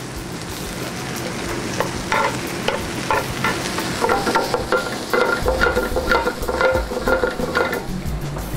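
Sliced onions and garlic sizzling in olive oil in a hot sauté pan, stirred with metal tongs that scrape and clink against the pan, with a faster run of clinks in the second half.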